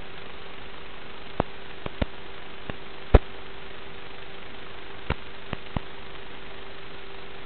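Static hiss and a steady hum from an analog FPV video link's audio, broken by eight clicks, the loudest a little past three seconds in.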